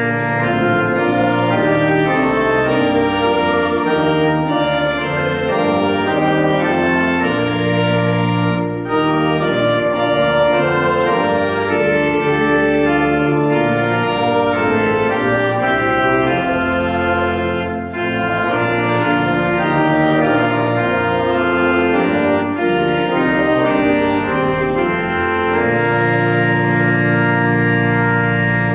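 Church organ playing a hymn in sustained chords, ending on a long held final chord near the end that then releases.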